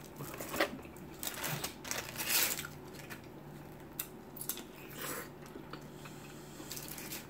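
Chewing and biting into pastrami sandwiches and fries close to the microphone, with scattered short mouth clicks and a longer crunchy bite about two seconds in.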